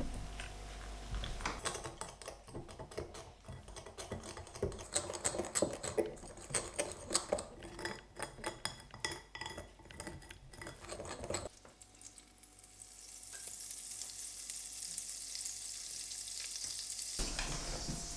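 A utensil clinking and scraping in a bowl or pan, stirring, for about ten seconds; then a steady sizzle of elderflower fritters frying in hot oil builds up and holds.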